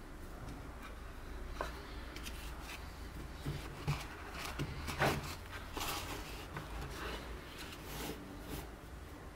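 Cotton-gloved hands handling a Rolex watch box: a foam pad lifted off a cardboard outer box, and a green presentation box rubbed and slid inside it. Soft rustling and rubbing with scattered light knocks, the loudest about five seconds in.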